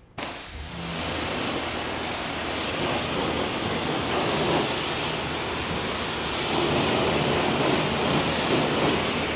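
Pressure washer spraying a jet of water across a car's paint, rinsing off pre-wash foam: a steady loud hiss that starts suddenly at the beginning and cuts off near the end, with a low hum underneath.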